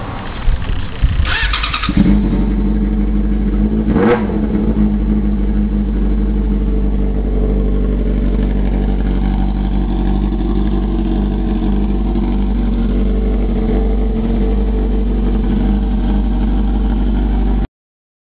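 Yamaha YZF-R6 inline-four engine starting up about two seconds in, blipped once briefly a couple of seconds later, then idling steadily.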